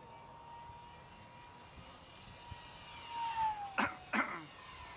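Distant jet airliner, a Boeing 787-8 on approach, heard as a faint whine of several steady tones that slide down in pitch about three seconds in. Two coughs about half a second apart, a little before the end, are the loudest sounds.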